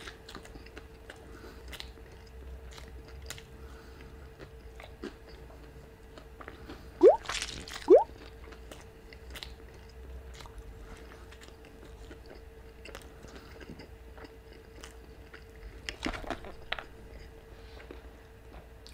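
Close-miked biting and chewing of a breaded chicken sandwich, with many small crunches and wet squishes. Two short rising squeaks near the middle are the loudest sounds. A faint steady hum runs underneath.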